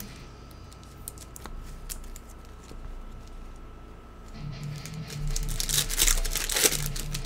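Trading card pack wrapper being torn open and crinkled, a burst of tearing and crackling for about two seconds starting around five seconds in, after a few quieter seconds of light handling clicks.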